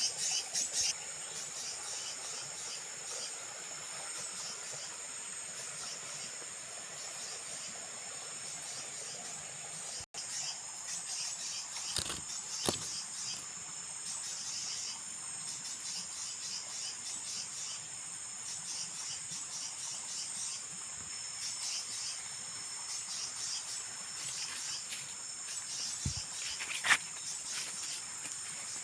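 Forest insect chorus: a steady, high-pitched pulsing trill throughout, with a few sharp clicks or snaps, the loudest about 27 seconds in.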